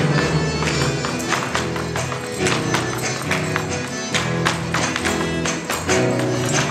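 Gaúcho folk dance music with a held reed melody and chords, over frequent sharp taps and stamps of a dancer's boots on a wooden stage floor, in the footwork of a chula danced around a lance.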